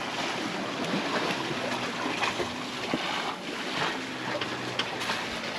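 Steady rush of water and wind aboard a sailboat under way, with wind buffeting the microphone.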